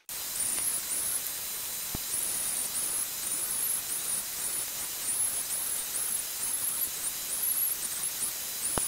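Corded electric drill spinning an 80-grit sanding disc against a wooden bowl blank, heard sped up in time-lapse: a steady high hiss with rapid squealing chirps and two short clicks.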